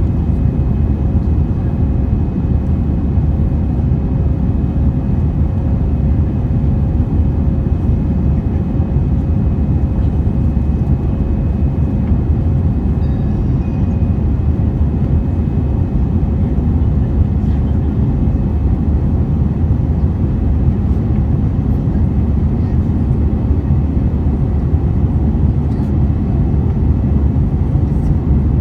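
Airbus A320 cabin noise in flight shortly after takeoff: the jet engines and rushing air make a steady, deep, even rumble, with a faint steady hum held over it.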